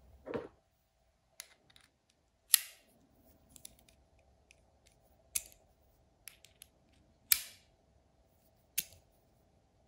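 Sharp metal clicks of a bit-holder extension and bits being snapped into and out of a Wera screwdriver handle's bit holder, about seven separate clicks. The loudest two, about two and a half and seven seconds in, ring briefly; a soft handling knock comes right at the start.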